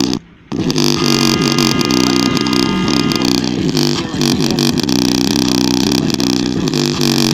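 Hip-hop beat with a heavy, distorted bass line played loud on a JBL Flip 4 portable Bluetooth speaker, with a brief break just after the start.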